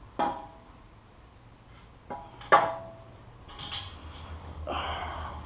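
Metal parts knocking together with a short ring: one clank just after the start, two more a little after two seconds in, the second the loudest, then a brief metallic jingle and a rustling scrape.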